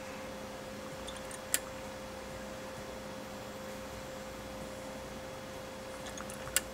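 CHINO EL100-06 dotting-type chart recorder running with a steady hum, its print mechanism giving two sharp clicks about five seconds apart as it dots the chart.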